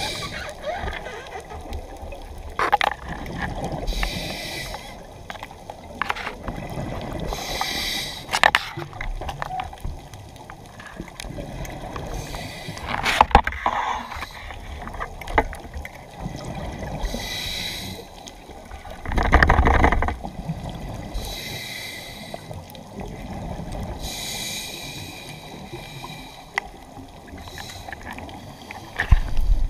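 Underwater sound around a diver: breathing comes through as bursts of hiss every few seconds, with one loud rush of bubbles about two-thirds through, and scattered sharp clicks and knocks as the pole spear and speared hogfish are handled.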